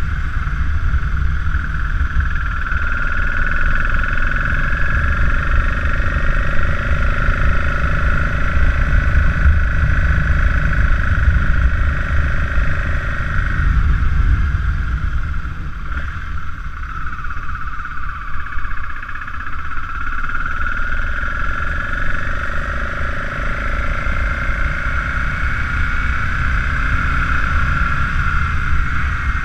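BMW F650GS motorcycle engine running under way, with heavy wind rumble on the handlebar-mounted microphone. The engine note holds steady, eases off about halfway through, then picks up again.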